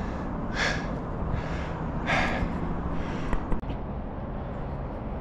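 A man breathing hard, catching his breath after climbing a tree: three loud, breathy exhales in the first two and a half seconds. A short sharp knock comes about three and a half seconds in.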